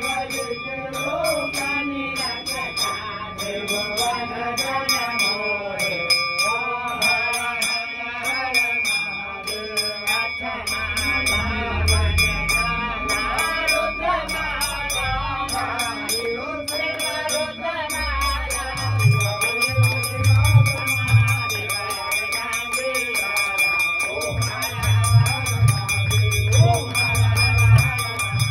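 Hindu temple aarti being sung by a group of voices over a bell rung without pause and fast, even jingling of small cymbals or bells. Low drum beats come in about two-thirds of the way through and again near the end.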